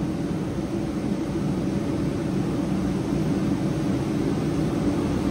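Shop heater running: a steady low hum with a rush of air, unchanging throughout.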